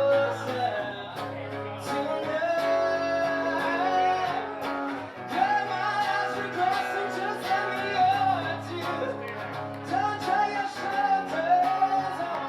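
A man singing a song over guitar accompaniment with steady low bass notes.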